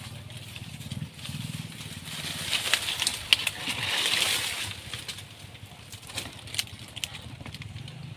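Dry palm fronds rustling and crackling as someone pushes through them on foot, loudest about two to five seconds in, with a few sharp snaps.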